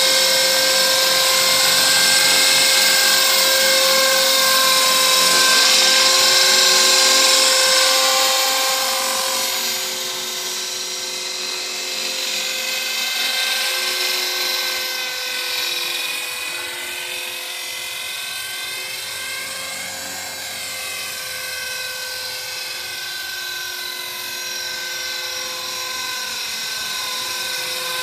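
HK-450 Pro TT electric 450-size RC helicopter flying: a steady high whine of motor and rotor with several tones stacked together. It is loud for the first nine seconds or so while the helicopter is low and close, then drops in level as it climbs away, its pitch wavering up and down.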